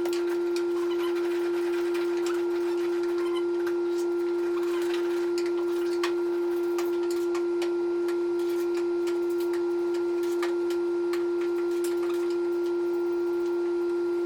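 Power sander running at steady speed on car body panels, a constant high-pitched hum with light scattered scratching and ticking from the pad on the surface.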